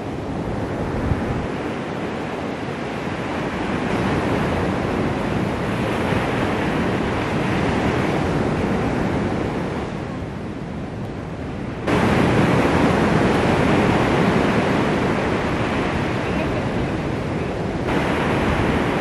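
Surf breaking and washing up a sandy beach, with wind buffeting the microphone. The sound is a steady rushing that grows suddenly louder about two-thirds of the way through, then again near the end.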